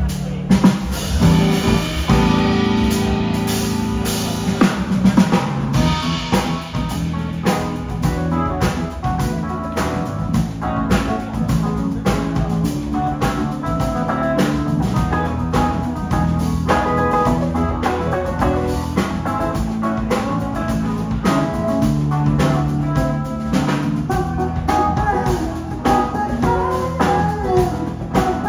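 Live band playing: electric guitar and drum kit over keyboard, with a steady drum beat.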